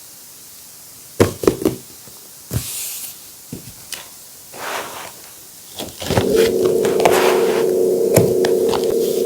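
A few sharp knocks and taps of objects set down and handled on a tabletop, with a brief rustle between them. About six seconds in, a steady droning hum starts and keeps going under more small ticks.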